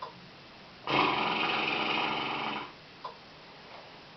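One long snore of about two seconds, starting about a second in: the snoring sound that the anti-snoring mask listens for.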